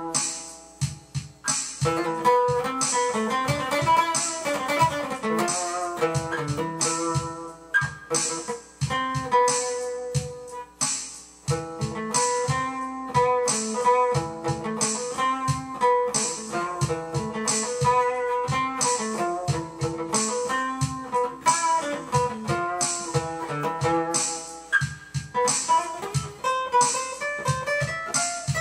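Solo acoustic guitar played fingerstyle: a steady stream of plucked notes, with melody and bass notes together and no singing.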